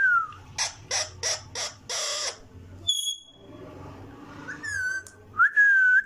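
Indian ringneck parakeet whistling and calling: a falling whistle, then five short harsh calls in an even rhythm, a high clear note, and near the end a wavering whistle and a rising whistle that holds steady.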